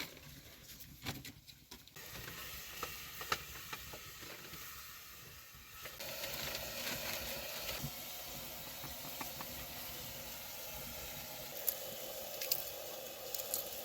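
Food sizzling in a cooking pan, a steady hiss with scattered crackles and pops. The sizzle grows louder about six seconds in.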